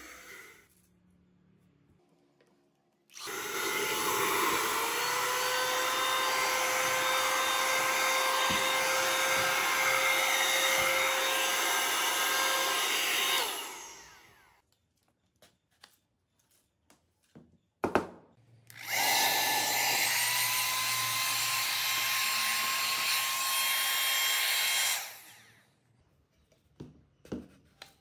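Homemade PVC-pipe vacuum cleaner, a high-speed RS380 DC motor spinning a hair-dryer fan, switched on: it spins up to a steady high whine with rushing air, runs for about ten seconds and winds down. After a click it runs again for about six seconds and winds down, followed by a few light ticks.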